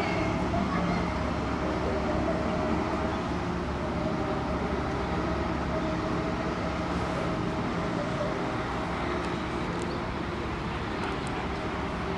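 A steady low mechanical hum with a few held tones, even in loudness throughout.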